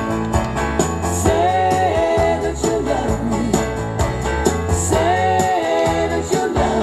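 Background music: a song with a singing voice over bass and steady percussion.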